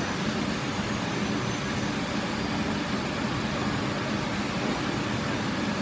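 Steady machinery hum and noise of a radiator factory workshop floor.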